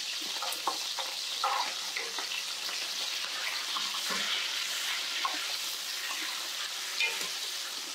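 Duck slices sizzling in a frying pan of rendered duck fat, a steady hiss, broken by a few short clicks and eating noises.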